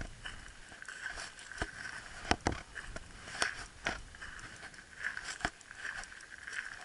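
Footsteps crunching on shingle and gravel, with irregular sharp clicks and scrapes every half second or so.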